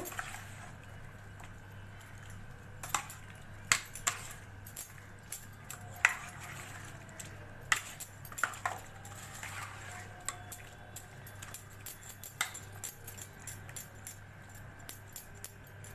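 Metal spoon clinking and scraping against a stainless steel bowl as chicken pieces are turned in a thick green marinade, in irregular strikes every second or so, over a steady low hum.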